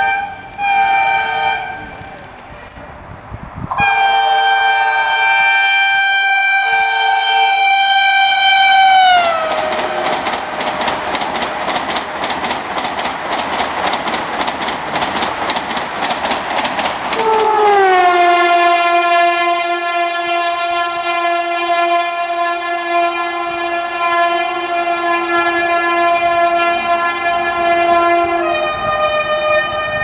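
Vande Bharat Express train horn sounding long chord-like blasts. About nine seconds in, the horn pitch drops as the train passes at high speed, followed by the rush and rapid clatter of the coaches' wheels going by for several seconds. Then another long, steady horn blast sounds, changing note near the end.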